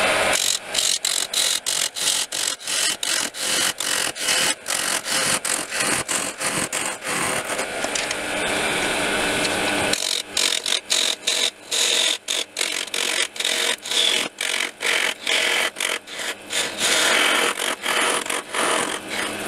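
A high-speed-steel turning tool facing the end of a spinning oak blank on a wood lathe. It makes a rough scraping cut that keeps breaking off in short gaps, with a steadier stretch about halfway through.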